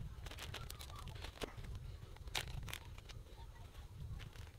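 Plastic food packaging crinkling and rustling as it is handled, with scattered sharp crackles and clicks.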